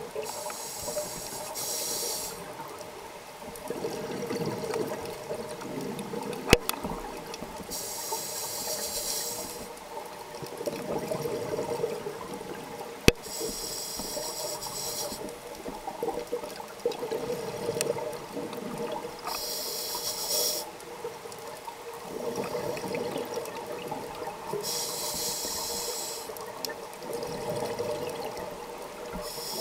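Scuba regulator breathing underwater, recorded through the camera housing: a hissing inhale about every six seconds, five in all, each followed by the low bubbling rumble of the exhaled bubbles. Two sharp clicks are also heard.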